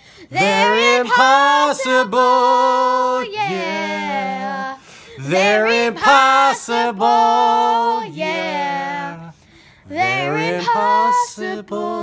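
A girl and a man singing unaccompanied in long held notes that slide up and down, broken by short pauses, the longest about nine seconds in.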